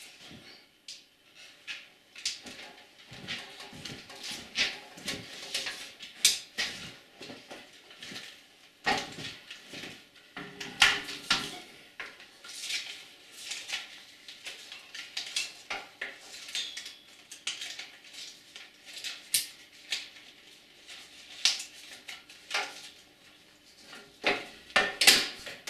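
Irregular metallic clicks, knocks and clatter from hands working the upper film reel housing of a Bauer B 8 B 35 mm cinema projector.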